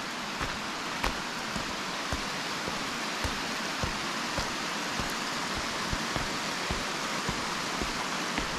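Hiker's footsteps going down gravel-and-timber trail steps, nearly two steps a second, under a steady rushing hiss.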